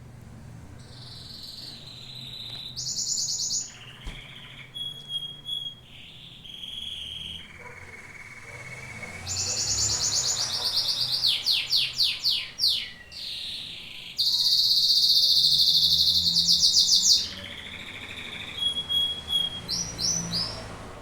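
Domestic canary singing a long, varied song: rapid trills and repeated notes, clear held notes, and a series of quick downward-sweeping notes. About two-thirds of the way through comes a loud, fast rolling trill, the loudest phrase.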